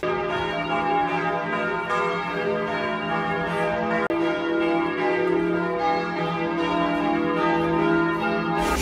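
Church bells ringing in a tower: several bells sounding together in a continuous peal, their tones overlapping and hanging on.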